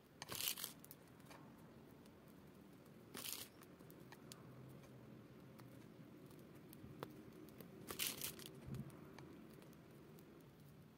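Plastic piping bag crinkling in three short bursts as it is squeezed to pipe cream petals through a metal tip.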